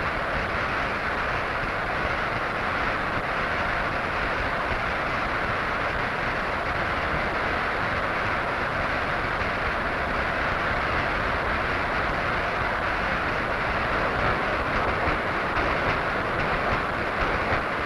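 Steady clatter of belt-driven factory machinery running: a dense mechanical rattle at an even level throughout.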